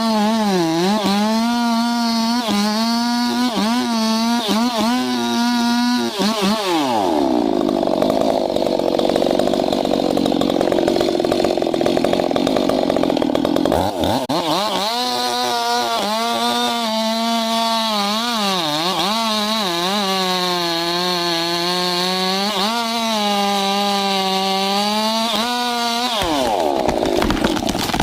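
Stihl chainsaw running at high revs with its pitch wavering as the throttle is worked. From about six seconds in until about fourteen, the pitch drops and turns rougher as the chain cuts into wood under load. It then climbs back to high revs and drops again near the end.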